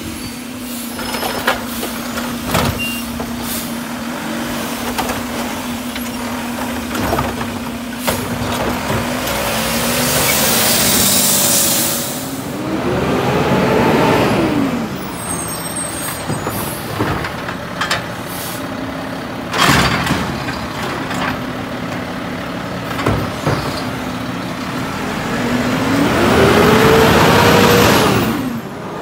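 Mack garbage truck with a Heil automated side-loader body working its stops: a steady engine drone, a long air-brake hiss about ten seconds in, and the engine revving up and back down twice. Sharp knocks and bangs come through at intervals, the loudest about two-thirds of the way through.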